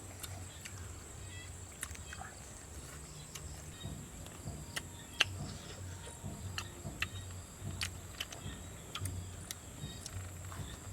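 Outdoor ambience: a steady high-pitched insect drone over a low hum, with scattered light clicks.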